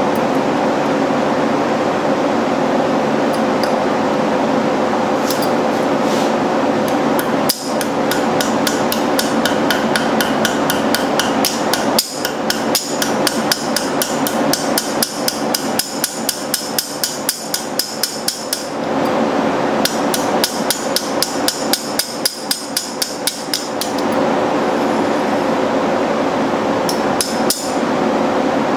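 A small ball-peen hammer tapping rapidly on steel on an anvil, striking a concrete-nail hook held against a horseshoe. The taps come in a long run of about three or four a second, with a couple of harder blows, stop near the end, and then come twice more, over a steady hum.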